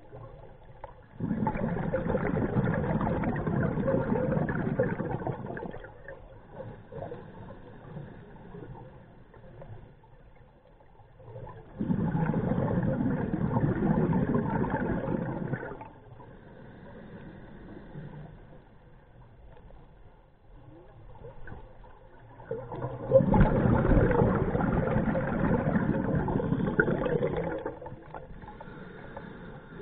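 Scuba diver breathing through a regulator underwater: three long rushes of exhaled bubbles, each about four to five seconds, roughly eleven seconds apart, with quieter stretches between.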